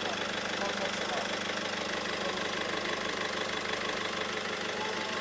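Peugeot 207's 1.6 HDi four-cylinder turbodiesel engine idling steadily with an even diesel clatter.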